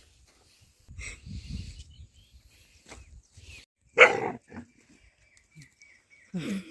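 A dog barks once, sharply, about four seconds in; softer low noises come about a second in.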